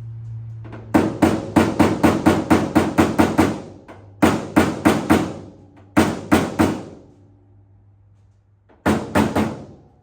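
Paintless dent repair tap-down tool striking the steel fender of a square-body Chevy pickup to knock down high spots: a quick run of about a dozen sharp, briefly ringing taps, then short groups of three or four taps with pauses between.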